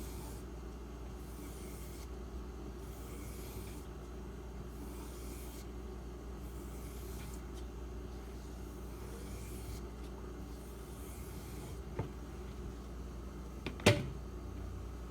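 A knife blade making a series of faint, soft swishing strokes, about one a second, as it is drawn along the strop or through paper after sharpening. Near the end come a small click and then a sharper knock, with a low steady hum under everything.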